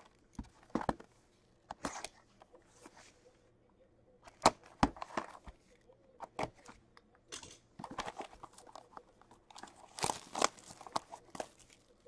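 Hockey card pack wrappers being torn open and cards handled: scattered rips, crinkles and card flicks, loudest about four and a half seconds in and again around ten seconds in.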